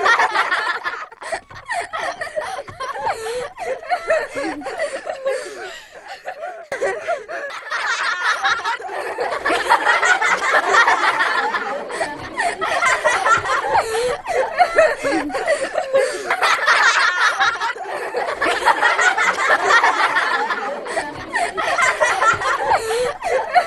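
A group of young children and toddlers laughing hard while playing, many voices overlapping in continuous giggles and squeals. It thins briefly about a quarter of the way in, then swells back fuller and louder.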